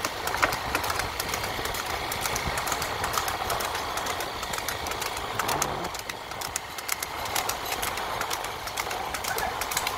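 A motorcycle engine running at low speed, with wind rush and a fast, irregular clatter of rattling over it.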